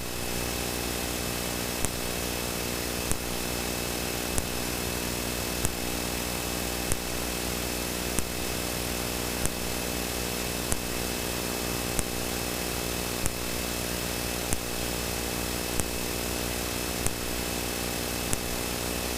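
Steady cockpit noise of a Cessna Citation V in the climb: the hum of its twin turbofan engines and the rush of air over the airframe. A faint sharp click comes about once every second and a quarter.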